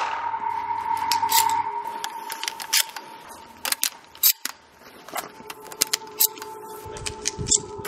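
Sharp metallic clicks of 12-gauge shells being pushed one at a time through the loading port into the magazine tube of a FABARM Professional STF 12 pump shotgun. There are about eight clicks at irregular intervals.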